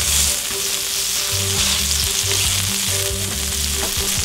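Two beef burger patties sizzling and crackling in their own fat on a hot flat-top griddle, the freshly flipped side searing after the final flip.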